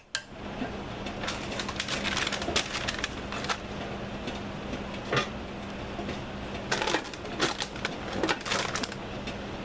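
A sheet of paper crinkling and crackling as it is pressed down over the top of a crock pot, with bursts of sharp crackles about a second in and again near the end, when the glass lid is set on top of the paper.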